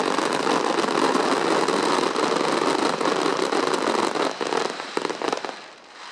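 Fireworks crackling densely, a rapid mass of sharp pops, which thins out and dies away after about four seconds.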